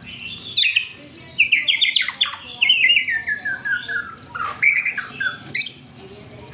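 White-rumped shama (murai batu) singing a fast song: a long run of rapid repeated notes that steps down in pitch, followed by scattered whistles and sharp calls.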